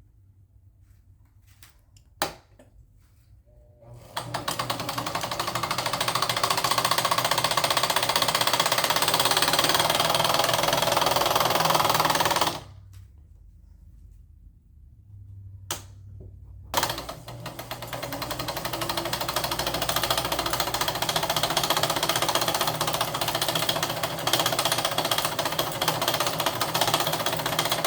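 Sears Kenmore sewing machine running at speed to wind a bobbin, its motor and mechanism making a dense, steady rattle. It builds up a few seconds in and runs for about eight seconds, stops, gives two sharp clicks, then runs again for about ten seconds and cuts off suddenly near the end.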